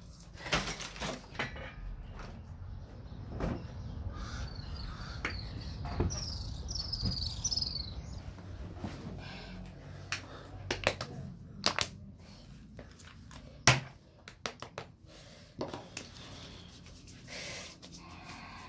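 Handling noises: rustling and scattered sharp knocks and clicks as things are moved about and packed on a bed.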